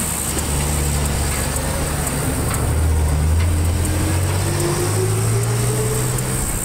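Low drone of an approaching freight train's diesel locomotive, a CSX GE ES40DC, not yet in sight, its engine note rising slowly in pitch over a few seconds. A steady high hiss runs over it.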